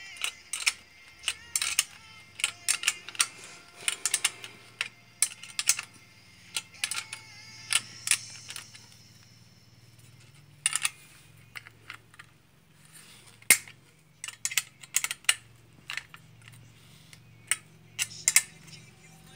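Small metal wrench clicking and clinking against nuts and bolt heads as the bolts holding a blade to its handle are tightened: irregular sharp metallic ticks with short pauses.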